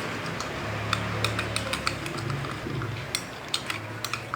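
Glue slime being stirred in a bowl with a utensil, with irregular clicks and scraping against the bowl; the mix is still wet. A low hum sits underneath.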